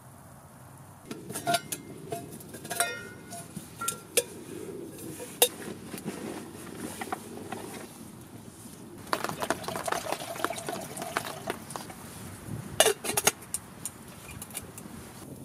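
Stainless steel Zebra billy pot being handled: its lid and wire bail handle clink and rattle against the pot in a string of light metallic knocks, a few of them ringing briefly. Near the end come two louder clanks as the lid is pressed on.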